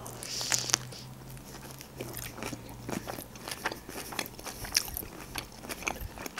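Close-miked eating: a bite into a fresh rice-paper spring roll filled with shrimp, avocado, cream cheese and carrot about half a second in, then moist, crunchy chewing with many small crackles.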